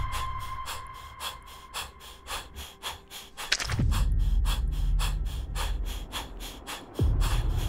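Cinematic soundtrack: a breathy, hissing percussion pulse at about four beats a second, with deep booms that strike about three and a half seconds in and again near the end, each starting with a quick downward sweep.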